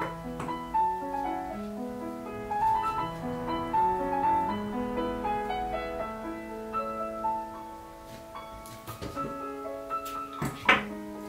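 Solo piano background music, notes in a slow melody, with a few sharp clicks near the end.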